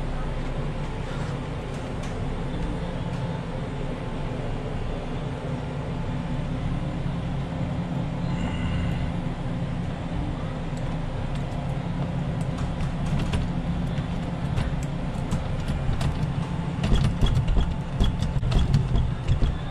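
Small metal clicks and knocks of a lock-picking tool working in a door lock, sparse at first and denser and louder near the end, over a steady low hum.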